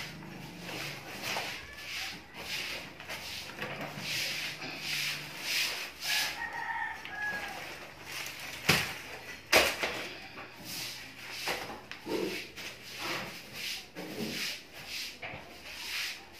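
Copper windings being pulled and scraped out of a dismantled welding machine's transformer, with repeated rustling, scraping strokes and two sharp knocks about nine seconds in. A rooster crows in the background about six seconds in.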